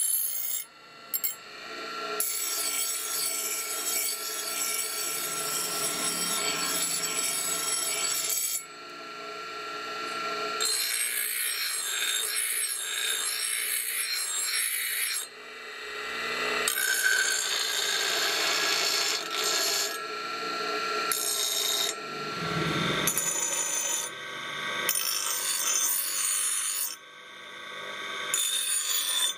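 A small bench grinder's wheel grinding the edge of a forged iron axe head. It comes in repeated passes that each build up over a few seconds and then break off sharply, over a steady whine.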